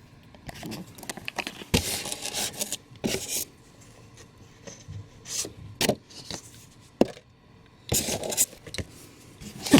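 Statue packaging being handled during unboxing: irregular scraping and rubbing of the box contents, with several sharp clicks and knocks.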